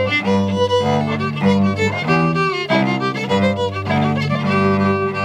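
Fiddle playing an instrumental tune, its melody notes changing quickly over steady held low notes.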